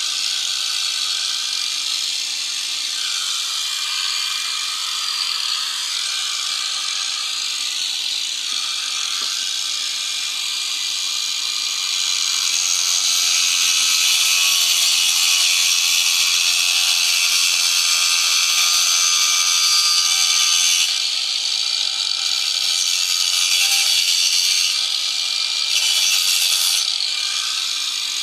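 An electric power tool running steadily while cutting or abrading wood, a continuous hissing rasp over a faint motor hum. It gets louder for several seconds midway through and again briefly near the end.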